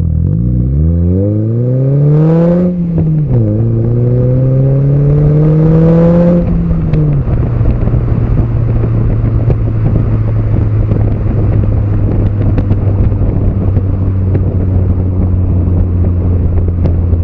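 Nissan Note Nismo S (E12) with a Kakimoto Class KR sport muffler, heard right at the tailpipe while driving. The exhaust note rises under acceleration, drops sharply about three seconds in as the car shifts up, then climbs again more slowly. About seven seconds in it eases off and settles into a steady drone while cruising.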